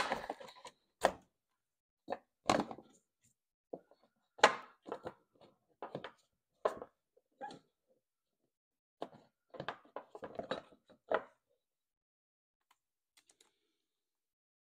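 Scattered light knocks, clunks and rubbing as a drive belt is worked by hand onto the pulleys of a John Deere LA145's steel mower deck.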